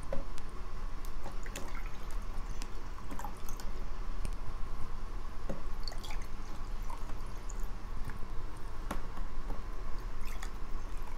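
Water pouring from a plastic water bottle into drinking glasses: a steady trickle with scattered drips and small clicks.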